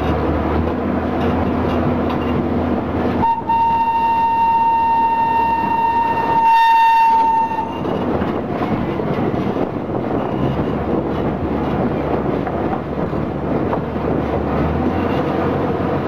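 Botchan Ressha replica steam locomotive's whistle blowing one long steady note for about four seconds, starting about three seconds in, over the train's running rumble.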